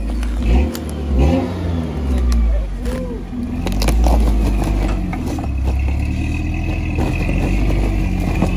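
Off-road 4x4 SUV engine revving up and down in repeated bursts as it crawls over rocks and a log at low speed, with scattered knocks and cracks about three to four seconds in.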